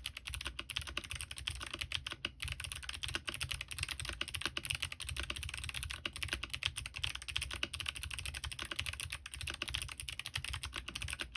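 Fast, continuous typing on a Smurve80 mechanical keyboard with lubed Kailh Box Jade clicky switches, DCS keycaps, an aluminium plate and no foam: a dense stream of sharp key clicks that stops abruptly at the very end.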